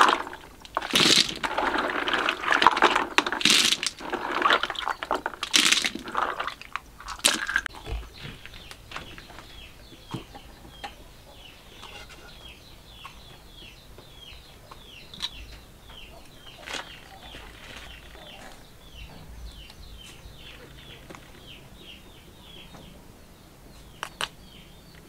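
Snail shells clattering and splashing as hands scrub them in a tub of water, for the first seven seconds or so. Then it goes quieter, with a bird chirping over and over, about three short falling calls a second, and a couple of sharp clicks near the end as a metal spoon knocks in a stone mortar.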